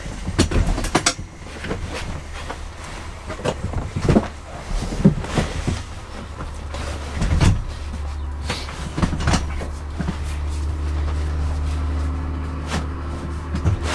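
Knocks, clunks and clatter of things being handled and set down inside a bus cabin, with echoing thumps. From about halfway through a steady low hum runs underneath.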